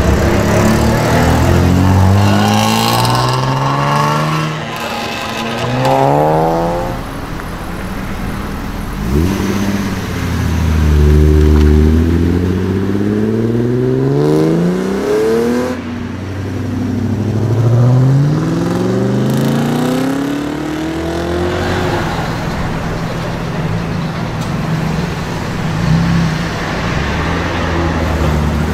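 Engines of modified BMW E36s revving and accelerating away, one car after another, the pitch climbing in repeated sweeps and dropping back at gear changes.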